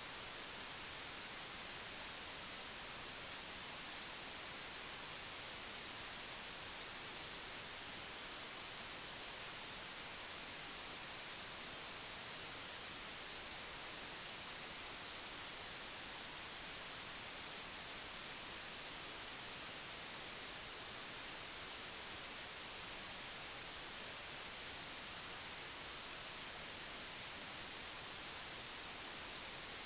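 Steady, unchanging hiss like static, heaviest in the high range, with no other sound standing out from it.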